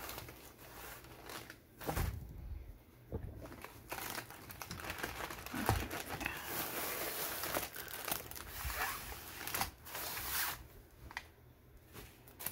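Rustling and crinkling of a fabric wrap, ribbon and paper and plastic packaging being handled as a packed kit is unwrapped. The handling is irregular, with scattered small clicks, and it pauses briefly about two seconds in and again near the end.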